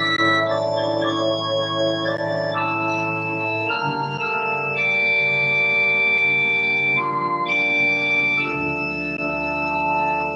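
Organ playing slow held chords that change every second or two, with a deep bass note coming in near the end.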